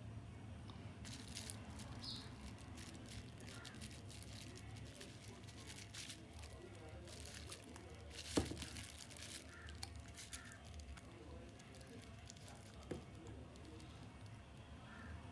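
Small plastic phone parts being handled and pressed together during reassembly: faint crinkling and rustling with scattered small clicks, a sharper click about eight seconds in and another near the end.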